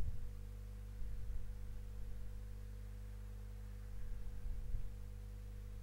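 Steady low hum with a few soft low thumps: one at the start, a cluster about a second in, and another around four seconds in.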